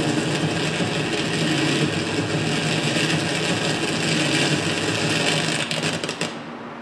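Live electronic noise music: a dense wash of noise over a low steady hum, fading away near the end.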